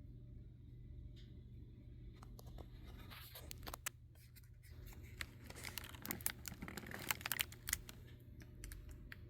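Scratching and rustling with a run of sharp clicks and ticks from about two seconds in until near the end, over a steady low hum.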